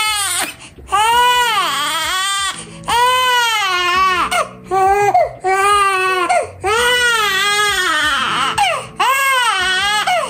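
Newborn baby crying hard: a string of loud wails, each about a second long, rising and falling in pitch, with short breaks between them.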